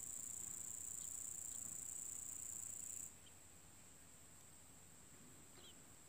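Steady high-pitched insect trilling, as of crickets, that drops to a fainter level about three seconds in, with a few faint short chirps over it.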